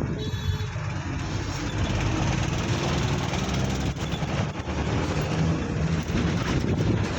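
Steady road-traffic noise, with a vehicle engine's low drone running throughout.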